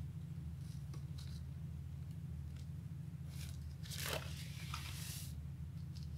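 Pattern paper and a plastic ruler being handled on a table: a few faint pencil scratches about a second in, then a longer paper rustle around four seconds in as the sheet is shifted and the ruler set aside, over a steady low hum.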